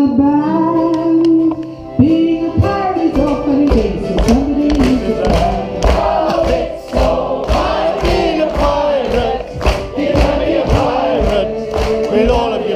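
Cast singing together with a small folk band of acoustic guitar, accordion and ukulele. A long held note opens, and from about two seconds in the song runs on over a steady beat of about two strokes a second.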